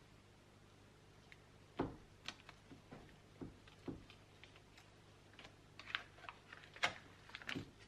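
Knife cutting a block of butter on its paper wrapper: a scattering of soft, irregular clicks and taps as the blade meets the countertop, with the wrapper paper rustling, starting about two seconds in.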